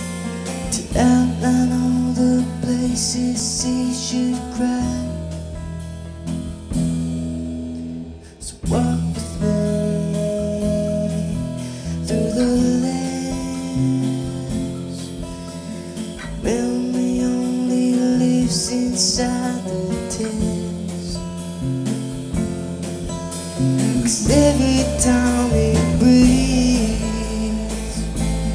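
A small band playing live: a voice singing over keyboard, electric bass and a drum kit with cymbals. About eight seconds in the band briefly drops almost to nothing before coming back in.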